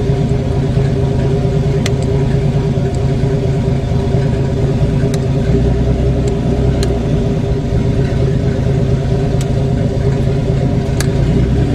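AMC 258 (4.2-litre) inline-six running steadily at an even pitch, with a deeper low rumble swelling for a couple of seconds mid-way and a few faint sharp ticks.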